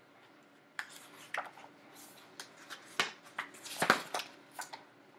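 Paper pages of a hardcover picture book being turned and handled: several crisp rustles and flaps, the loudest about four seconds in.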